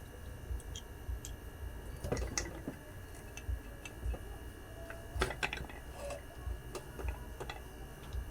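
Scattered light clicks and taps over a low rumble, with a cluster about two seconds in and another about five seconds in.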